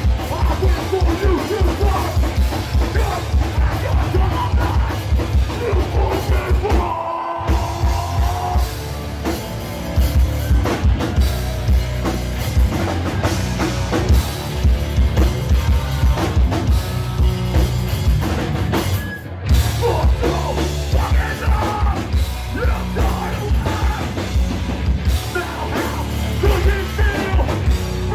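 Hardcore band playing live and loud: distorted electric guitars, fast drum kit and shouted vocals. The band cuts out for an instant about seven seconds in and again near nineteen seconds, then crashes back in.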